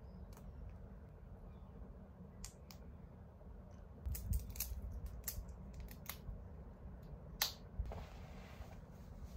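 Small sharp clicks and taps from earrings being fastened, clustered around the middle with one louder click a little later, over a low room hum. Near the end comes a soft rustle of a knit cardigan being handled.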